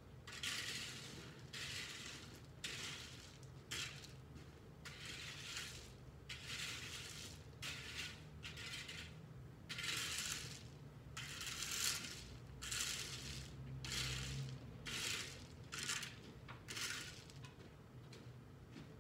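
A rake dragged and scraped through loose gravel in repeated strokes, roughly one a second, with a low steady hum underneath.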